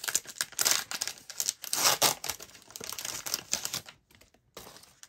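A foil trading-card pack wrapper crinkling and tearing as it is opened, with many quick crackles. It dies down to a few faint rustles about four seconds in.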